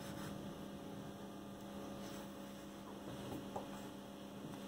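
Steady electrical mains hum, with faint scratches of a felt-tip marker drawing a line on paper.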